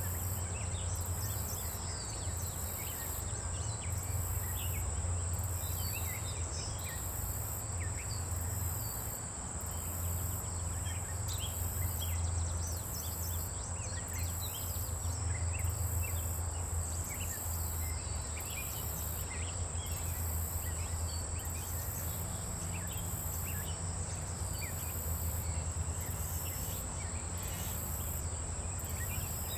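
Outdoor garden ambience: insects trilling steadily at a high pitch with a regular pulse, over a low steady rumble, with scattered faint short chirps.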